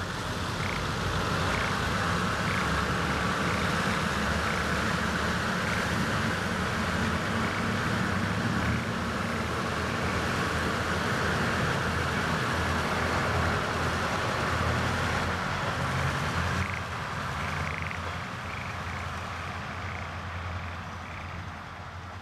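Kominato Railway KiHa 200 diesel railcars running past, engine and wheels on the rails, fading away over the last few seconds as the train leaves. Frogs croak repeatedly in the flooded rice paddy.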